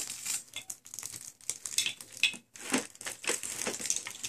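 Irregular rustling and crinkling with light knocks as small children handle plastic toys and a plastic laundry basket.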